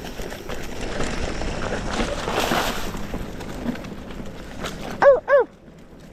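Mountain bike rolling over a dirt trail, with tyre noise and small rattles from the bike. About a second before the end come two short calls in quick succession, each rising then falling in pitch, and these are the loudest sounds.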